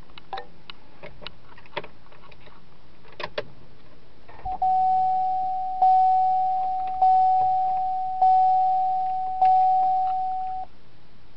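2010 Chevrolet Camaro's dashboard warning chime sounding with the ignition switched on: one steady tone struck five times, about a second apart, then stopping. Before it, a few light clicks and taps.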